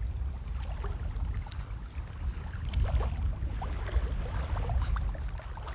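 Wind rumbling on the microphone, with scattered light splashes of feet wading through shallow seawater.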